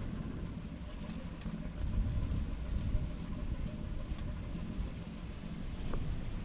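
Steady low rumble aboard a ship at sea, with a faint hum and a few light clicks.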